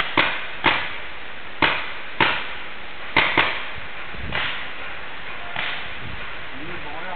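Paintball markers firing single shots: about eight sharp pops at irregular intervals, the loudest in the first three and a half seconds and fainter ones after.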